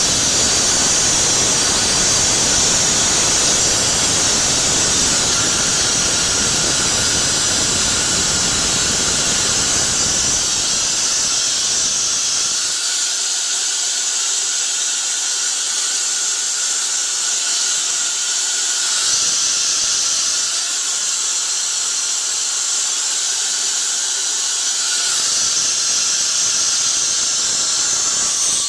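Compressed air hissing loudly and steadily through the spindle of a Hyundai SPT-V30T CNC mill, held open for a manual tool change. A lower rumble underneath fades out about eleven seconds in, and the hiss cuts off suddenly at the very end.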